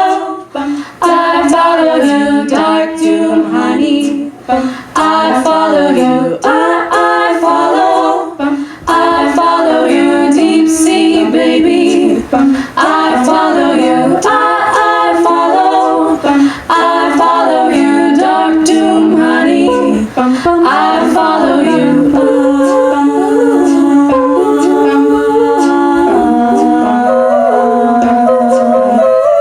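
An a cappella vocal group singing, a soloist's melody over backing voices, with a steady beat of sharp clicks under the first two thirds. In the last third the voices hold long notes.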